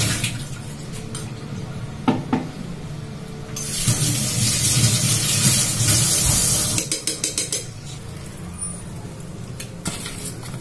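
Steel kitchen utensils clattering: a couple of sharp knocks of a spoon against a steel bowl, then a quick run of light clicks a little past the middle. Between them, tap water runs into the sink with a steady hiss for about three seconds.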